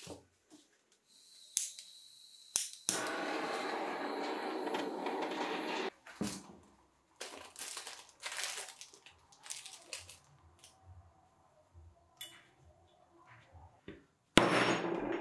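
Workbench handling noises from an aluminium moped crankcase half and tools on a cardboard-covered bench: a few sharp clicks, a steady rustle about three seconds long, and scattered light knocks. About a second before the end comes one loud knock as a soft-faced mallet strikes a socket to drive a part into the crankcase's bearing bore.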